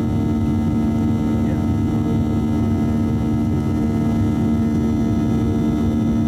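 Boeing 737-700's CFM56-7B turbofan engines heard from inside the cabin in the climb after takeoff: a steady drone with strong low humming tones over an even low rumble.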